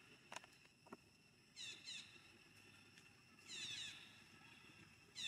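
Baby monkey crying: short, high-pitched calls that fall in pitch, coming in pairs and a quick cluster, with two faint clicks in the first second.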